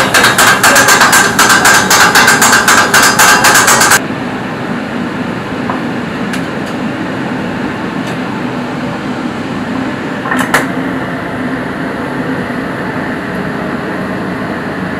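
Metal kottu blades chopping paratha on a flat griddle: a rapid, even clatter of metal striking metal that cuts off suddenly about four seconds in. After it comes steady stall background noise with a couple of light knocks.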